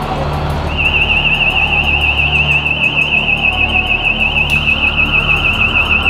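A high electronic alarm tone warbling rapidly and steadily, starting about a second in, over a low steady hum.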